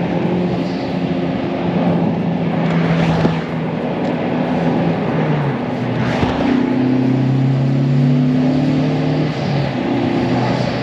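Honda Civic Type R FK8's turbocharged 2.0-litre four-cylinder running through an Apex'i N1-X Evolution stainless cat-back exhaust with dual titanium tips. The engine note holds steady, then drops in pitch about halfway through.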